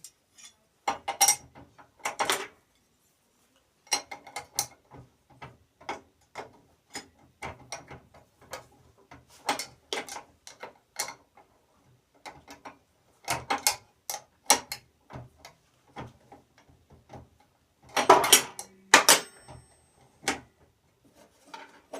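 Irregular metallic clicks, clinks and knocks from hand tools working at a rusted table saw blade and its arbor, with a louder cluster of knocks near the end.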